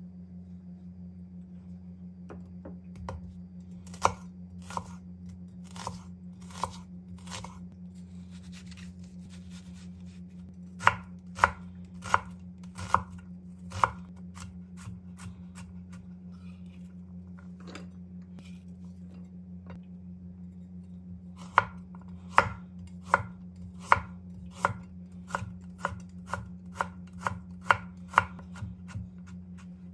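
Chef's knife chopping on a wooden cutting board, dicing an onion and then cutting a carrot, in runs of sharp strikes with pauses between them, the strikes coming quicker near the end. A steady low hum runs underneath.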